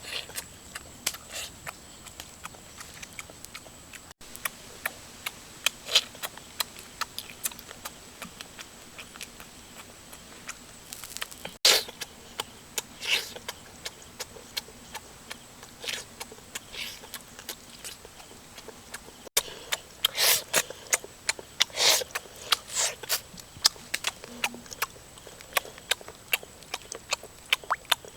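A person eating close to the microphone: irregular wet smacks and crisp clicks of chewing and biting, coming in quick clusters.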